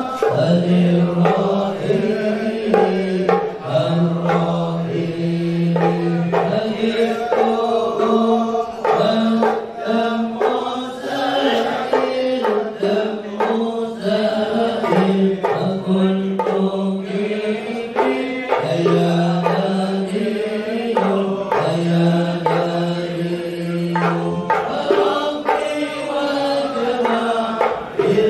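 A man leading sholawat, Islamic devotional singing in praise of the Prophet, into a microphone: a melismatic chant of long held notes that step between pitches. Hand percussion beats along.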